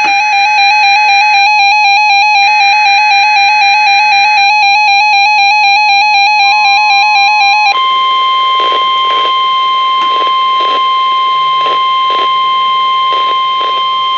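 A weather radio alert: a loud warbling alert tone overlaid by two short bursts of screeching SAME data, then the steady NOAA Weather Radio warning alarm tone (the 1050 Hz tone), with some faint crackle of static. This is the start of a Required Weekly Test broadcast.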